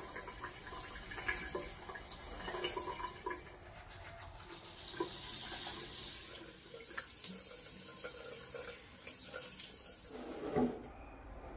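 Water running from a tap into a sink basin, with small clicks of a toothbrush and toothpaste tube being handled at the sink. The water sound stops just before the end.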